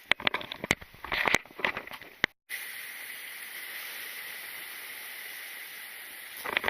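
A quick run of sharp clicks and knocks, like gear being handled on rock. After a brief break it gives way to a steady outdoor hiss.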